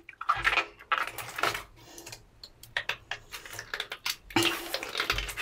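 Wet rubber water balloons being handled and squeezed by hand against each other in a bathtub: irregular small clicks, rubs and squeaks of wet rubber.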